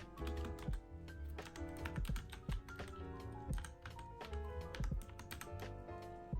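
Mechanical keyboard typing, a quick uneven run of key clicks, over soft background music.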